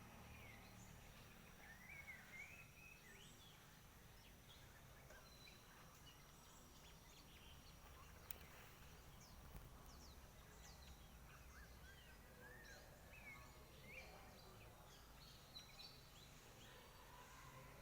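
Near silence: faint outdoor ambience with a low rumble and scattered, faint bird chirps.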